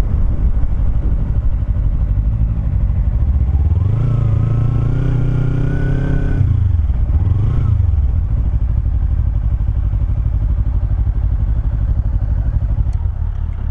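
Kawasaki Ninja 300's parallel-twin engine under way, with wind rushing over the helmet-mounted camera. About four seconds in, the engine note climbs steadily, then drops off suddenly. It rises briefly once more and then settles lower as the bike slows.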